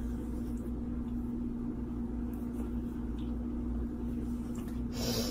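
A steady low machine hum with one constant tone and a rumble beneath it, and a short hiss near the end.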